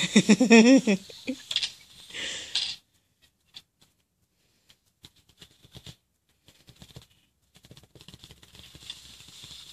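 A person's wavering vocal sound in the first second, then faint scattered clicks and rustles of a plastic toy train being handled on bedding.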